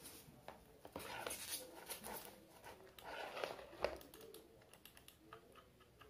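Faint rustling and crinkling of the wrapper being pulled off a wired computer mouse, with light clicks and taps as the mouse and its cable are handled; the sharpest click comes about two-thirds of the way through.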